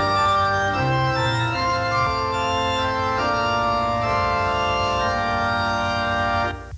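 Organ music: sustained chords that change about once a second, with a held bass line, cutting off shortly before the end.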